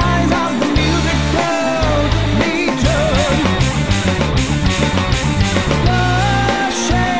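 Indian fusion rock song: drums, bass and electric guitar, with a male voice singing a long, bending melodic line. A run of heavy cymbal and drum strokes fills the middle.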